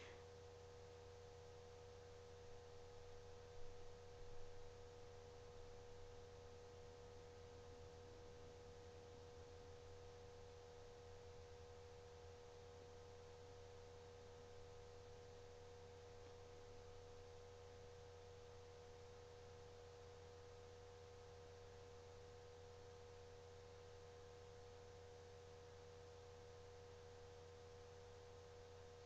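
Near silence with a steady electrical hum and a faint constant tone, with a couple of faint bumps about four seconds in.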